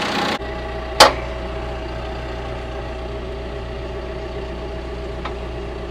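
Tractor engine idling steadily, with one sharp clank about a second in.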